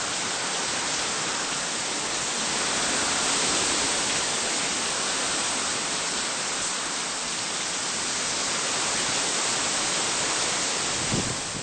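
Steady hiss of heavy, wind-driven hurricane rain pouring down, unbroken throughout.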